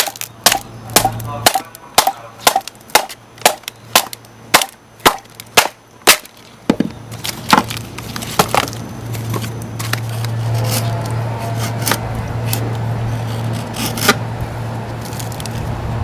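Wood being chopped: sharp, regular strikes about twice a second for roughly six seconds, then occasional cracks and snaps over a steady low hum.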